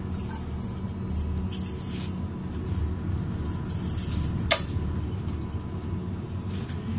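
MAN Lion's City city bus idling at a standstill, a steady low diesel hum heard from behind the bus. A single sharp click sounds a little past the middle.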